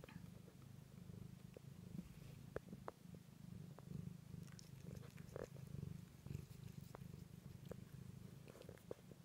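Domestic cat purring steadily as it rubs its face against a hand, with a few light clicks scattered through.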